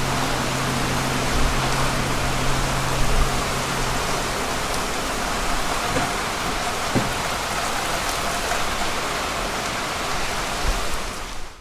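Heavy rain pouring onto pavement, a steady hiss. A low steady hum stops about four and a half seconds in.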